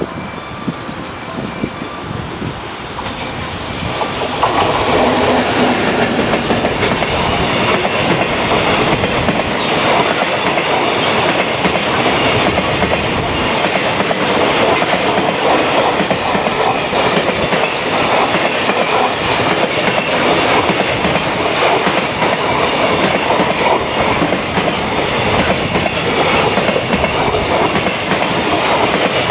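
JR Freight train hauled by an EF210 electric locomotive passing through a station without stopping. The noise builds over the first four seconds as it comes through, then holds as a steady loud rumble of the wagons with a fast clickety-clack of wheels over rail joints.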